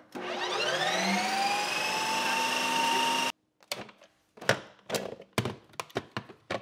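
Ninja Creami ice cream maker spinning its blade into a frozen pint of protein ice cream base on the light ice cream program: an extremely noisy motor whine that rises in pitch as it spins up, levels off, then cuts off suddenly a little over three seconds in. After it come a series of sharp plastic clicks and knocks as the pint bowl is unlocked and handled.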